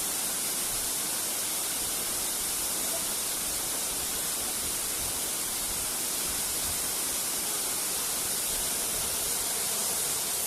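Waterfall: a steady rush of falling water, an even noise with a strong hiss and no breaks.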